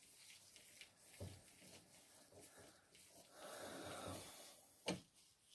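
Faint scraping and small ticks of a steel screwdriver shank working inside a cast-iron drill press vise's jaw, with a soft rasping hiss for about a second past the middle and one sharp metallic click near the end.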